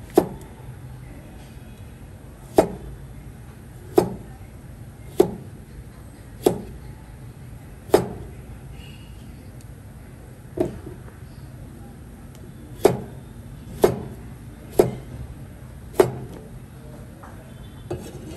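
Heavy knife chopping on a cutting board: about a dozen single, sharp strikes spaced one to two and a half seconds apart.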